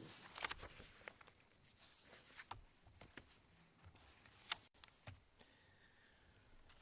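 Near silence with room tone, broken by faint scattered clicks and light rustles from things being handled at a desk, the clearest about half a second in and again about four and a half seconds in.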